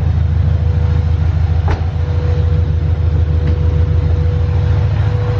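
Honda B16A four-cylinder engine idling through a header and DC Sports exhaust, a steady low rumble with an even pulse. A single sharp knock comes about a second and a half in.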